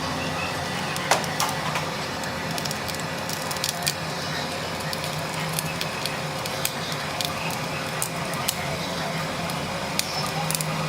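Cracked phone back glass being chipped and worked off: irregular sharp cracks and ticks, the loudest about a second in, over a steady low hum.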